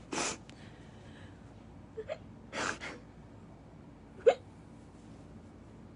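A woman crying into a towel: two noisy breaths and a few short sobbing catches in the throat, the sharpest about four seconds in.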